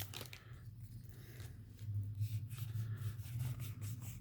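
Faint rustling and soft clicks of Yu-Gi-Oh! trading cards being slid and flipped through by hand, over a low steady hum.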